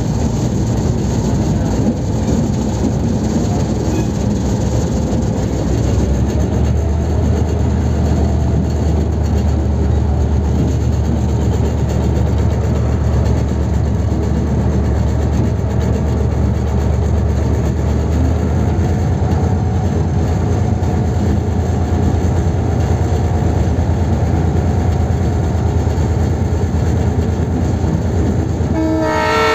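Diesel locomotive engine running steadily, heard up close from the front of the locomotive as the train rolls slowly over yard tracks; a deeper steady hum settles in about six seconds in. The locomotive's horn starts to blow near the end.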